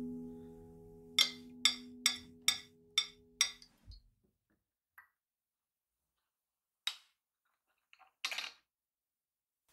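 Soft background music with about six evenly spaced wood-block taps, roughly two a second and fading. The music stops about four seconds in. After it come a few faint, separate knocks and clinks.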